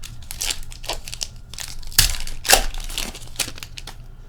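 Packaging of a hockey card pack being torn open and crumpled: a run of crinkling and tearing, loudest about two seconds in.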